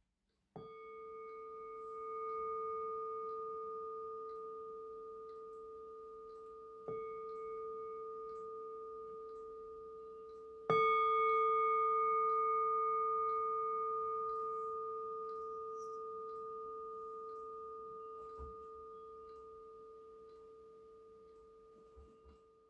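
A singing bowl struck three times: once near the start, again about a third of the way in, and hardest about halfway. Each strike rings on in a steady, slowly fading hum.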